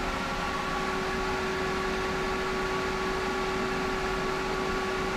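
Hayward Super Pump VS variable-speed pool pump running steadily at 3250 RPM, moving about 67 gallons per minute through 1.5-inch PVC plumbing. It makes an even hum with a couple of steady tones over a rushing hiss.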